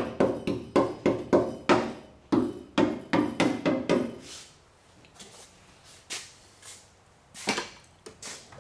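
Rapid knocking, about three strikes a second with a short ring after each, stopping about four seconds in; a few softer knocks follow near the end.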